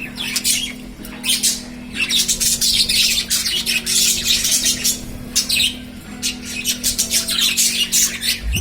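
Lovebirds chattering and squawking: dense, high-pitched calls in rapid runs, broken by brief pauses.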